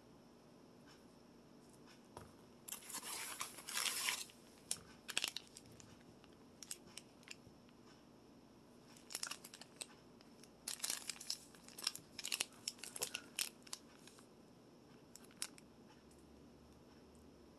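Packaging being torn open and crinkled by hand as a new bicycle bottle holder is unpacked: irregular bursts of tearing and rustling, the longest about three seconds in and a busy stretch in the middle, with quiet gaps between.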